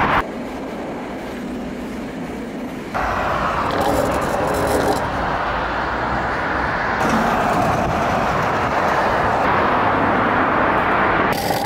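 Stunt scooter's wheels rolling over asphalt: a steady rolling rumble that changes abruptly a few times, about 3, 7 and 11 seconds in.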